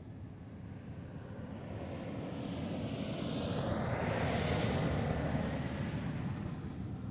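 Jet airliner passing close, its engine noise swelling to a peak about four seconds in and then fading, with a high whine that falls in pitch as it goes by.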